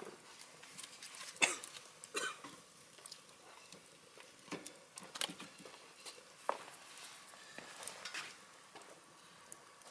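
Scrap wood burning in a wood stove, crackling with irregular sharp pops and ticks over a faint hiss; the loudest pops come about one and a half and two seconds in.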